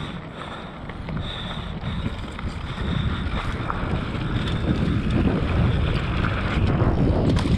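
Mountain bike descending a dry dirt singletrack, heard from a camera on the rider: wind buffeting the microphone over the rumble of the tyres on dirt and short rattles from the bike. It grows louder as the speed picks up.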